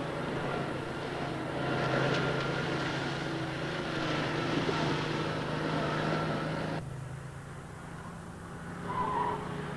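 Tatra 613 saloon driving at speed on a test track: its air-cooled V8 engine runs with a steady drone under tyre and road noise. The sound cuts abruptly to a quieter, steadier drone about seven seconds in.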